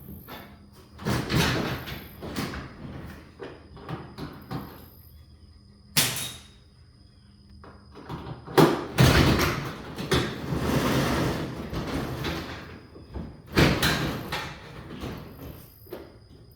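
Sectional garage door hardware being worked on: clattering and knocking of metal door parts and rollers, with a sharp knock about six seconds in and a longer rattling stretch near the middle.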